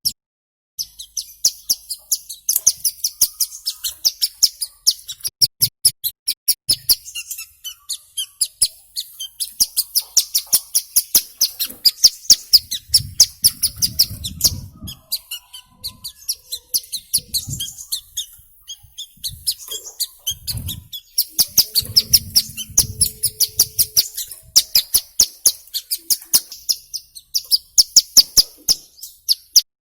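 Ciblek gunung, a small prinia, singing in long runs of rapid, evenly repeated high chirps, many to the second, with brief pauses between runs.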